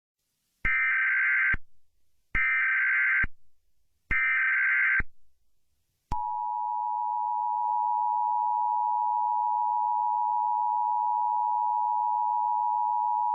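Emergency Alert System tones: three short, identical screeching SAME data bursts, each about a second long with a brief gap between them. About six seconds in, the steady two-tone EAS attention signal begins and holds.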